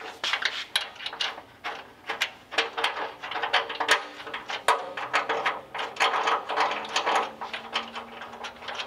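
Irregular metal clicks, knocks and scrapes as a sheet-metal core support carrying a radiator and electric fan is shifted and worked into place in front of the engine.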